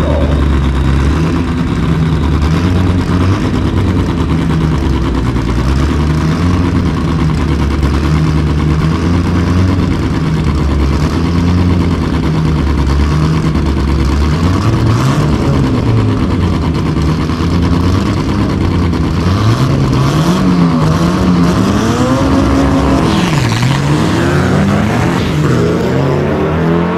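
Drag race car engines running loudly at the starting line, pitch stepping up and down with throttle blips. In the last few seconds a car launches down the strip, its engine revving up in repeated rising sweeps as it accelerates through the gears.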